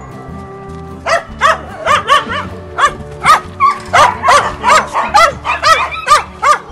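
Dogs barking in a quick string of short, sharp barks, about two to three a second, starting about a second in, over background music.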